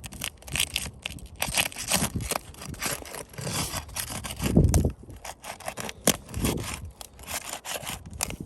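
Scraping, rubbing and crackling of an old asphalt roof shingle being worked loose so its nails can be pulled, the aged shingle starting to tear, with a dull low thud about four and a half seconds in.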